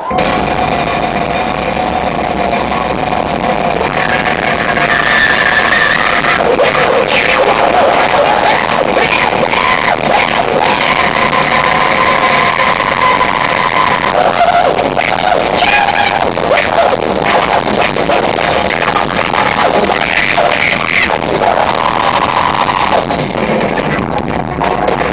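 A band playing loud, dense, noisy music with drums, and a voice heard over it at times.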